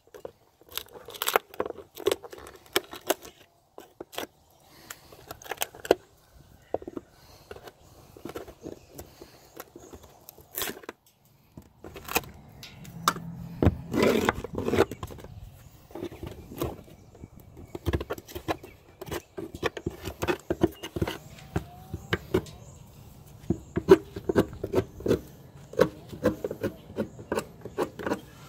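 Steel wood chisel scraping and prying into plywood, with irregular sharp clicks and cracks as wood splinters away, while the section around the tail-light opening is squared out.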